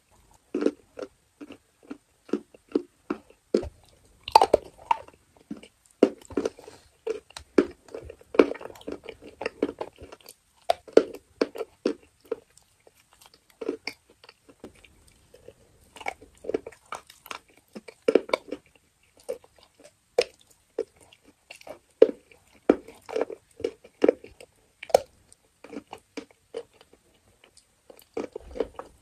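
Biting and chewing a crunchy moulded chalk bar dipped in wet brown paste, very close to a clip-on microphone. Bouts of short crisp crunches, about two to three a second, with brief pauses between bites.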